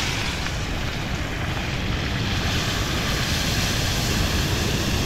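Fish frying in a pan of hot oil over a gas burner turned up high: a steady sizzle and rushing burner noise.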